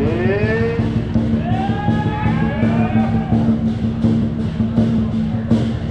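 Loud procession music: a steady low drone with several sliding, rising melodic notes in the first three seconds, over a regular percussion beat.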